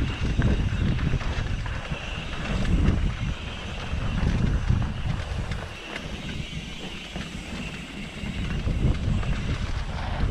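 Wind buffeting a helmet- or bike-mounted camera's microphone while a mountain bike rides down a dirt trail, with a steady rattle and knocking from the bike over the rough ground.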